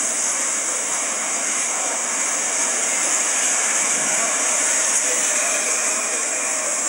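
Steady, even hiss of background noise with no speech, strongest in the high register.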